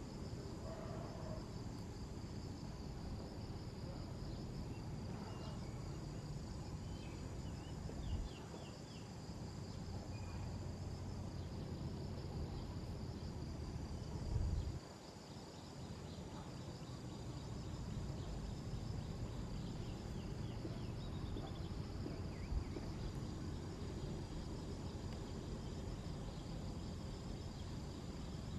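Steady high-pitched chorus of insects, with a low rumble underneath and a few dull thumps, the loudest about halfway through.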